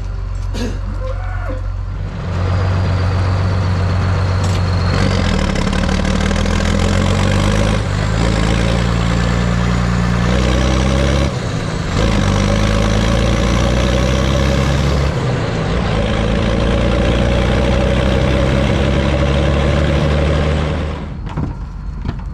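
Massey Ferguson 3690 tractor's diesel engine running loudly while the tractor drives along a road, its note stepping up and down several times as the engine speed changes. It stops near the end.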